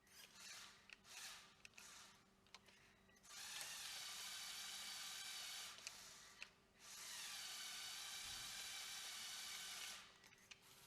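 Small Lego Power Functions electric motors whining under remote control: a few short blips, then two steady runs of about two and three seconds.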